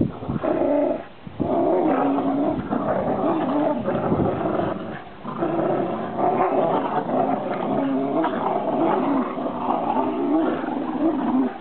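Dogs play-growling during a tug-of-war over a rope toy. The growl is long and continuous, breaking off briefly about a second in and again around five seconds.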